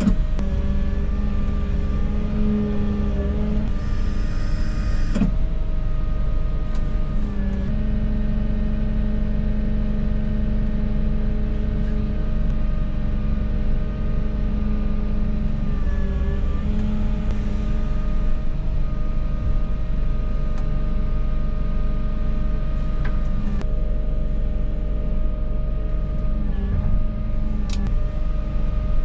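Volvo EW160E wheeled excavator's diesel engine running steadily, its pitch dipping briefly three times as it takes on load.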